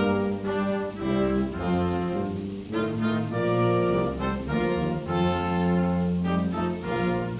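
Military brass ensemble, with tuba and French horn, playing a slow piece in held, full chords that change every second or so.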